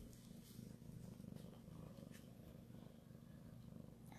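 Domestic cat purring faintly and steadily, a low continuous rumble close to the microphone.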